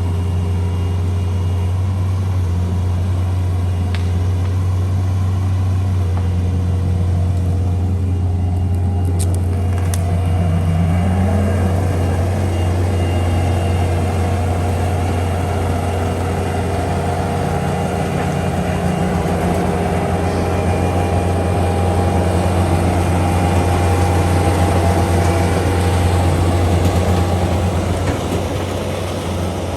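Bobcat 341D excavator's diesel engine running steadily, with its pitch shifting a little as the machine works.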